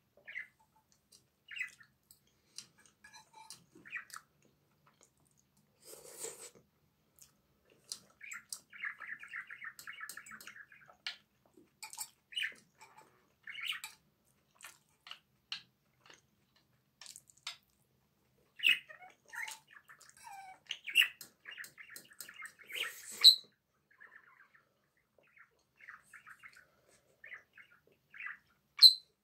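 A metal fork clinking and scraping against a stainless steel frying pan of pasta, with chewing and mouth sounds, in scattered short bursts and squeaky scrapes; a sharp clink comes near the end.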